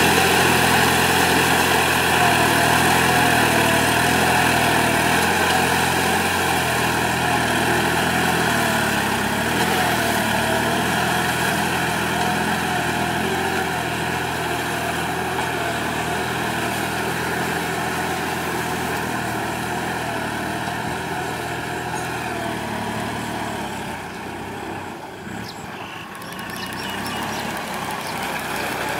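Kubota tractor's diesel engine running steadily under load while pulling a disc plough through a flooded paddy field. It grows fainter as the tractor moves away, dips briefly near the end, then comes back up a little.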